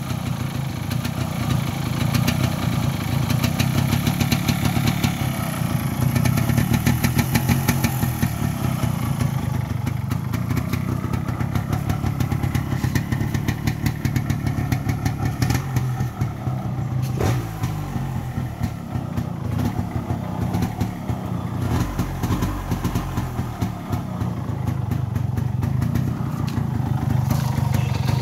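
Yamaha RX135's two-stroke single-cylinder engine idling through its stock catalytic-converter (cat) silencer, a little louder between about two and nine seconds in.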